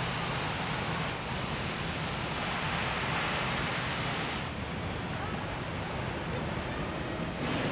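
Outdoor wind and harbour-side ambience: a steady rushing hiss with wind on the microphone. It shifts abruptly about a second in, again about halfway through, and near the end.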